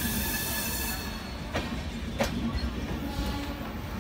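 Indian Railways sleeper coaches rolling slowly past as the express pulls in, with a steady low rumble. A high squeal and hiss sound in the first second, and two sharp clacks come from the wheels crossing rail joints about halfway through.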